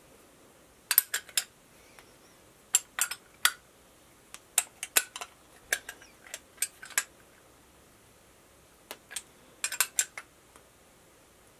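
Small ratcheting wrench clicking in short bursts of a few clicks at a time, with pauses between, as a threaded fitting is tightened into the flow meter block.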